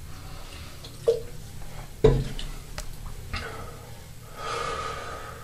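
A man breathing and sniffing while he gets ready for a vocal fry scream. There is a sharp breath about two seconds in and a longer breath near the end.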